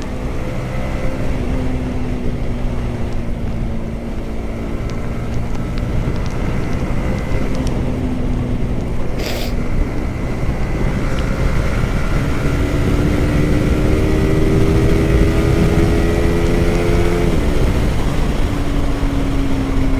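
Yamaha R15M's 155 cc single-cylinder engine running at speed on the road, over a steady rumble of wind and road noise. About two-thirds through, the engine note climbs slowly as it accelerates, then drops abruptly and settles lower.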